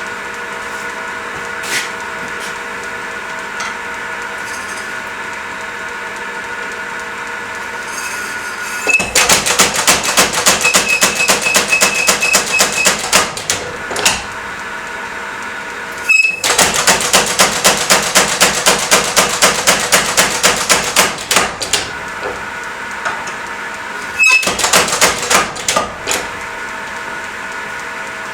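Mechanical power hammer running, its motor humming steadily, with three runs of rapid, evenly spaced blows, about five a second, on hot steel.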